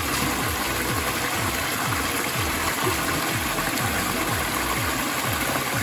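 Small rocky stream running steadily, water splashing down a little cascade into a shallow pool.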